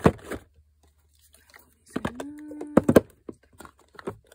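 Cardboard cosmetic boxes and plastic bottles knocking and sliding as they are packed into a drawer: a sharp clack at the start, a cluster of knocks about three seconds in, and lighter taps near the end. A brief voice sound, held at one pitch, comes about two seconds in.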